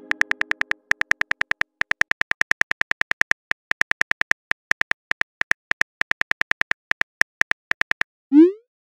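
Simulated phone-keyboard typing clicks, a rapid, slightly uneven run of about five or six short pitched ticks a second as a message is typed. Near the end the clicks stop and a short rising swoosh follows, the sound of the message being sent.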